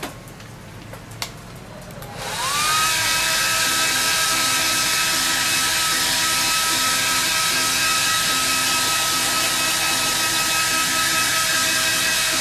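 Handheld hair dryer switched on about two seconds in, its motor whine rising in pitch as it spins up, then running steadily with a high whine over the rush of air.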